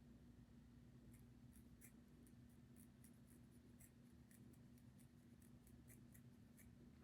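Near silence: room tone with a steady low hum and faint, irregular light clicks, about two or three a second, starting about a second in.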